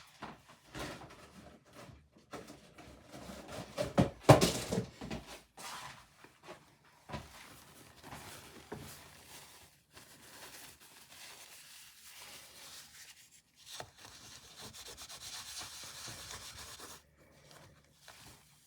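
Scratchy rubbing on a rough, textured painted canvas in uneven strokes, as paint is worked or lifted to tone down the colour. The strokes are loudest about four seconds in, with a steadier run of rubbing near the end.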